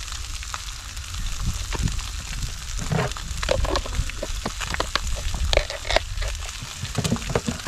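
Trout and its skin frying in a hot pan, a steady sizzle full of frequent sharp crackles and pops as the skin crisps.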